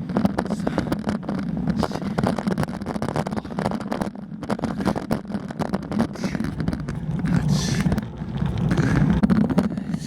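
Ride noise from a bicycle on a climb: a steady low rumble with constant small rattles and knocks, and wind on the microphone.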